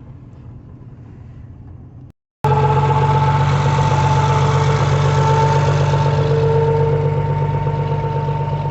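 Engine idling steadily, faint for the first two seconds; after a brief cut it runs loud and steady, with a deep hum and a steady whine over it.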